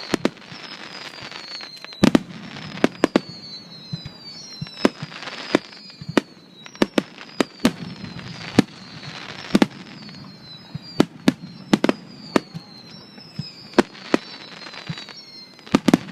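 Aerial fireworks display: a rapid series of sharp bangs from bursting shells, many coming in quick clusters of two or three, over a steady crackle.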